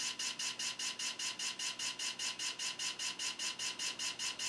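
3.5-inch floppy drive spinning and reading a boot disk, making a rhythmic scraping swish about five times a second that sounds unhealthy.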